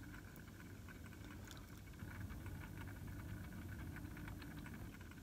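Faint steady hum of a small motorised display turntable rotating, with scattered light ticks.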